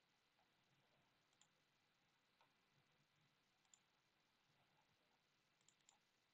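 Near silence broken by several faint, sharp computer mouse clicks at irregular intervals, with a quick pair of clicks near the end.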